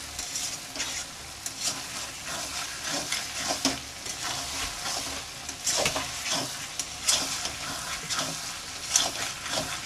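Mutton, liver and tomato masala sizzling as it fries in a metal kadhai, stirred and scraped by a metal spatula in irregular strokes over a steady sizzle. The spices are being fried into the masala while the tomatoes fry down and release their water.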